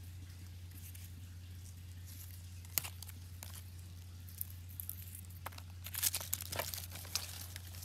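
Dry, withered sour-orange leaves crackling and rustling as they are pulled off rooted cuttings by hand, in scattered crackles that are busiest about six seconds in. A steady low hum runs underneath.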